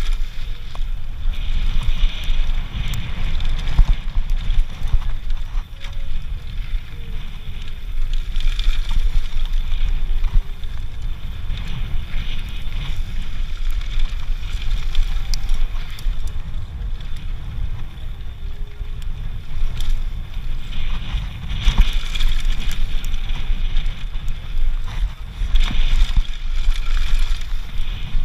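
Mountain bike descending a dirt trail, heard from a helmet-mounted camera: heavy wind buffeting on the microphone over the rumble of tyres on dirt, with small rattles and clicks from the bike.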